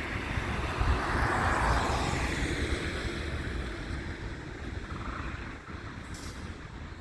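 A road vehicle driving past. Its tyre and engine noise swells about a second in and then fades, with wind rumbling on the microphone.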